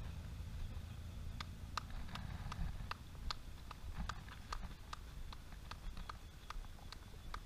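Footsteps of marathon runners on a wet tarmac lane: sharp irregular taps about three a second, starting about a second and a half in, over a low steady rumble.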